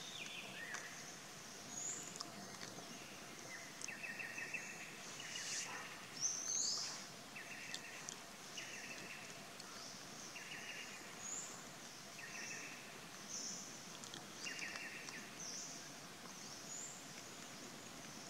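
Forest ambience of small creatures calling: short buzzy trills every second or two, with brief high chirps scattered between them over a faint steady hiss.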